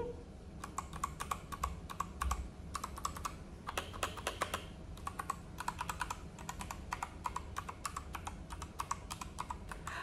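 Typing on a Royal Kludge RK61 60% mechanical keyboard with brown tactile switches: a quick, uneven run of key clacks.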